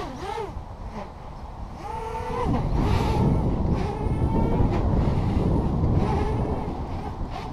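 WarpQuad 230 quadcopter's electric motors and propellers whining, the pitch rising and falling as the throttle changes. From about two and a half seconds in, a loud low rushing noise joins it and eases off near the end.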